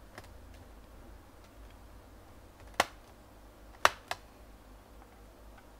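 Three sharp clicks of a screwdriver and screw against the plastic underside of a Sony Vaio netbook as its bottom-case screws are put back in: one, then a pair about a second later.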